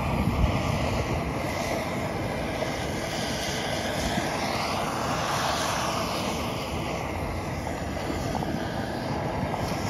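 Handheld LeTorch searing torch on a gas cylinder, its flame hissing steadily against a steak in a cast-iron skillet. The tone of the hiss shifts slowly as the flame is moved over the meat.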